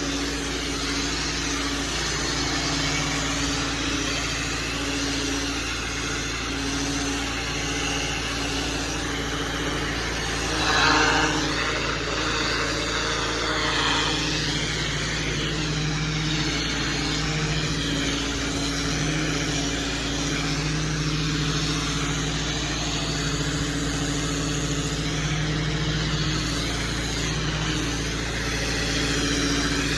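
Small gasoline engine of the cleaning equipment running steadily under a constant rushing hiss, with a brief louder surge about eleven seconds in.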